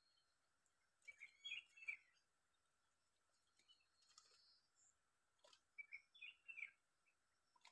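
Faint bird chirps in two short bouts, about a second in and again near six seconds, over a faint steady high hum.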